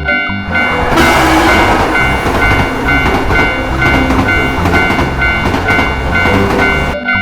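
A train passing over a railroad crossing, a loud rushing rumble that starts abruptly about a second in and cuts off sharply near the end. A crossing bell rings in a steady repeating pattern through it.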